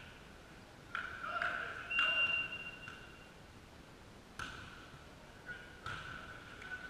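Volleyball being hit, about five sharp smacks echoing around a large sports hall, with a referee's whistle blown steadily for about a second near the start. Faint voices in the background.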